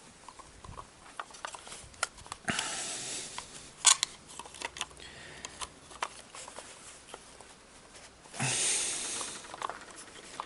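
Hands working on a GAZelle heater fan motor while its impeller is being pulled out: scattered small clicks and scrapes of parts being handled, a sharp knock about four seconds in, and two short rushing hisses.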